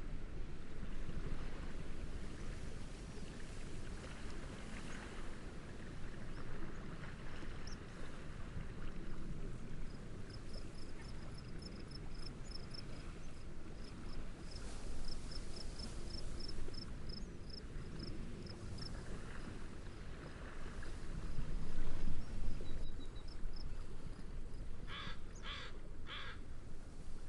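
Steady wind and a low wash of waves, with high chirps repeated about five times a second from about ten seconds in to about seventeen, and three harsh bird calls near the end.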